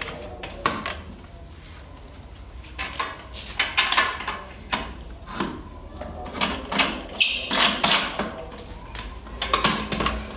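Irregular metallic clicks, knocks and a brief scrape as the lid and clamp knobs of a portable steam sterilizer (autoclave) are handled and fitted. The knocks come thickest in the second half.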